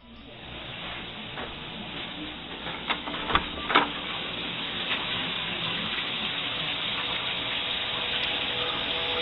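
Shower running: a steady hiss of spraying water that builds up over the first second or two, with a few sharp knocks about three to four seconds in.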